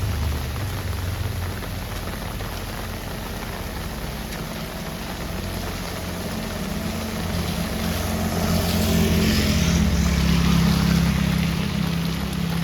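A motor vehicle's engine hum with a hiss of tyres on a wet road, under heavy rain. It grows louder in the second half as the vehicle comes close, then eases near the end.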